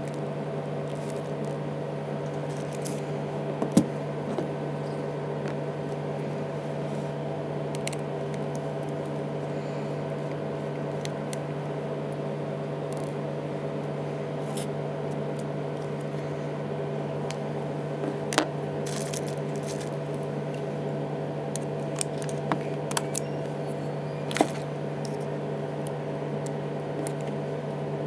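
Steady low hum with a few sharp, small clicks and taps, one a few seconds in and a cluster in the second half: small tools and parts being handled while an iPhone 3GS is taken apart for a battery change.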